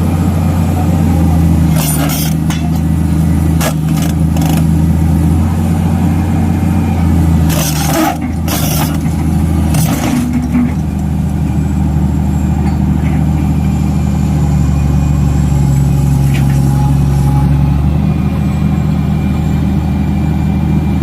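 Excavator diesel engine running steadily, its tone and load shifting a few times, with a handful of sharp knocks in the first half.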